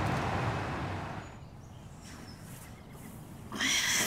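Steady distant city traffic hum that fades out about a second and a half in, then near the end a woman's short groan as she wakes.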